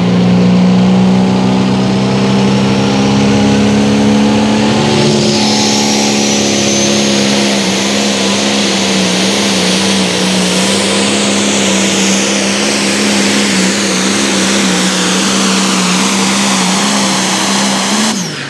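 Limited Pro Stock pulling tractor's diesel engine running flat out under load as it pulls the sled, holding a steady pitch, with a high whistle climbing from about five seconds in. Just before the end the throttle is cut and the engine note drops away sharply.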